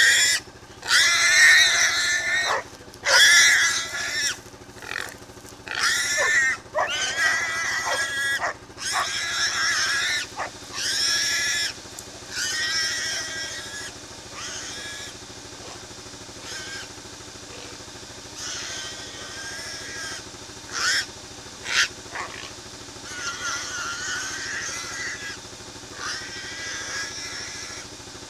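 Feral pig squealing again and again while held by the catch dogs. The squeals are loud and come close together for the first dozen seconds, then grow fainter and more spaced out, with two sharp clicks about three quarters of the way through.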